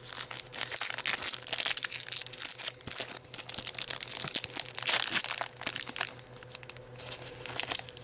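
Foil Pokémon booster pack wrapper being torn open and crinkled by hand, in irregular crackling bursts that are loudest about halfway through.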